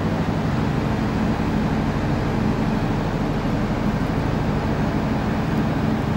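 Diesel engines of an Irish Rail InterCity train idling steadily while it stands at the platform, a constant low hum.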